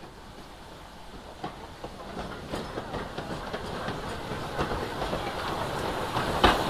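A train approaching, growing steadily louder, its wheels clicking over the rail joints more and more often as it nears.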